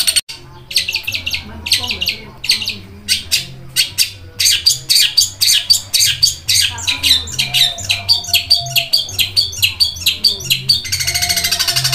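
Long-tailed shrike (cendet) singing a fast, chattering song of short, sharp high chirps, several a second, in the sparrow-like style of cendet master song. About eleven seconds in it runs together into a rapid continuous trill.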